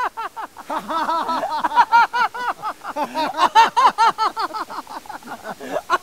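Two men laughing loudly with their mouths wide open, a fast run of 'ha-ha' syllables, about four or five a second, their voices overlapping. It is deliberate, forced laughter done as a laughter exercise.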